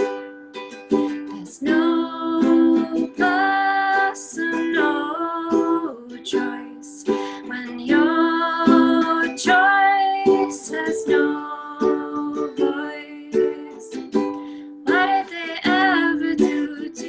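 A woman singing her own song to a ukulele, strumming chords throughout, her voice coming in three sung phrases over the playing.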